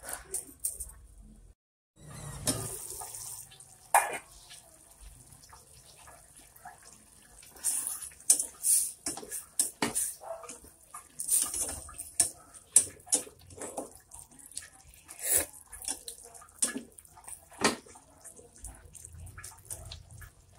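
Squid adobo simmering and sizzling in a stainless steel pot with a steady hiss, while a plastic spatula stirs it, knocking and scraping against the pot in a string of short clicks that come thickest in the middle.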